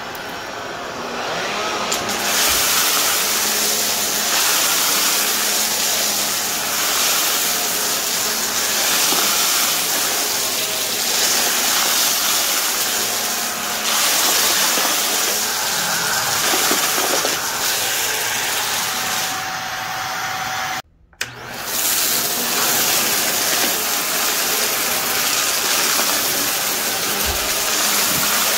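Vacuum cleaner running steadily, its motor coming up to speed over the first couple of seconds, with a brief break about twenty seconds in.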